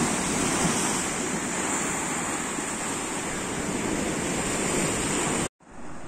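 Sea waves washing over shore rocks: a steady rush of surf and foaming water. It cuts off abruptly near the end.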